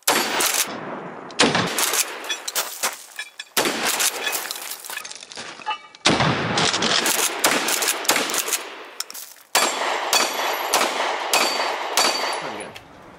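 Gunfire at an outdoor range: quick strings of shots from a rifle, a pump-action shotgun and a semi-automatic pistol, each shot followed by echo. Several short strings are cut abruptly one after another.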